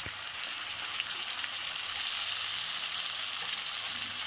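Hot oil sizzling steadily in a wok of fried onions with freshly added ginger, onion, garlic and cumin pastes, a light even hiss with a few faint ticks.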